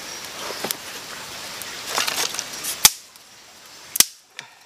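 A few sharp cracks of dry sticks at a small campfire, the loudest almost three seconds in and another about a second later, over a steady background hiss that drops away about three seconds in.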